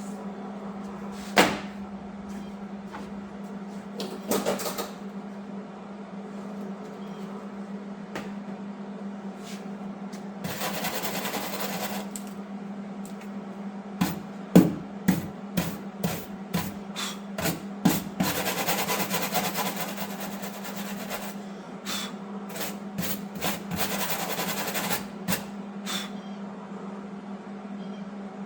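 Electric welder tack-welding a steel plug into a car's sheet-metal body panel: short crackling tacks, several in quick succession, and two longer runs of steady crackling weld of about two seconds each, over a steady low hum.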